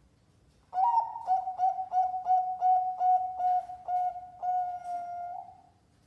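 Zebra dove (perkutut) cooing: a run of about a dozen short, clipped coos, some three a second, ending in one long held note of about a second.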